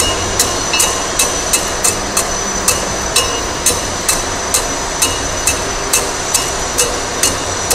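Steel tamping rod striking coarse aggregate in a cylindrical measure: sharp, even knocks about twice a second. These are the 25 blows that compact a one-third layer of aggregate for the aggregate crushing value test.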